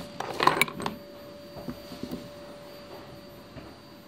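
Things being handled close to the microphone: a short clatter of clicks and rustling about half a second in, then a couple of soft knocks. A thin steady whine runs underneath.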